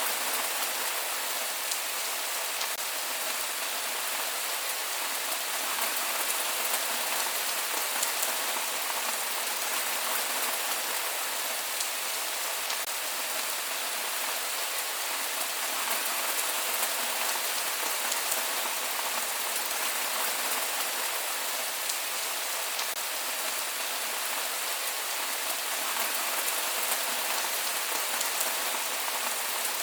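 Steady rain falling on a surface, a dense even hiss with scattered individual drop ticks and no thunder.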